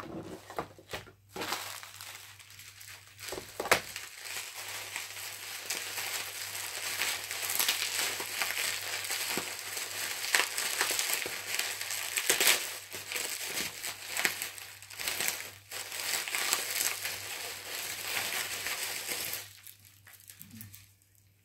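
Bubble wrap and plastic packaging crinkling as it is handled, a continuous crackle with a few sharper snaps that stops about two seconds before the end.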